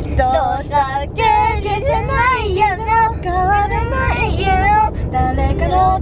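Young children singing in high voices, the pitch sliding quickly up and down, over a steady low rumble.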